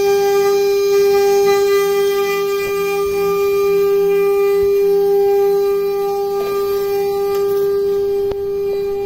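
CNC router spindle running at 24,000 rpm, a steady high whine that holds its pitch while it machines a wooden cylinder turning on the rotary axis. It gets slightly quieter about six and a half seconds in.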